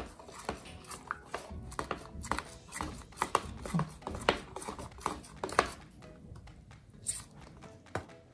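A metal spoon stirring a thick milk filling of condensed and powdered milk in a plastic measuring jug. The spoon clicks and taps irregularly against the jug's sides and bottom, and dies down about six seconds in.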